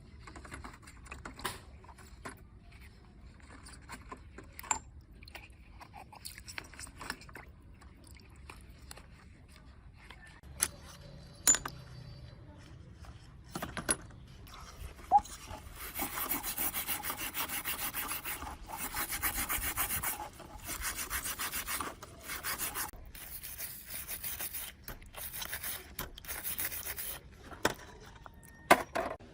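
Scattered clicks and knocks of small parts being handled, then, about halfway in, a long run of rapid abrasive rubbing strokes on a tool part, stopping and starting in short bursts, with a few sharp knocks near the end.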